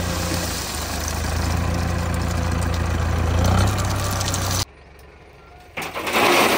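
Diesel tractor engine running steadily with a low, even drone. About four and a half seconds in the sound drops off abruptly, and near the end a loud rushing noise rises.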